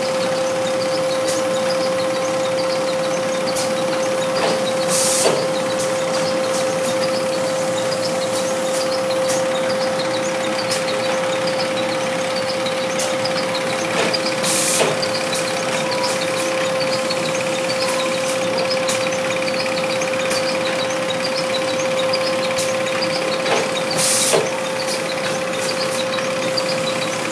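Industrial sheet-feeding machine with a roller conveyor running steadily, giving a constant hum. A short burst of hiss sounds three times, about ten seconds apart.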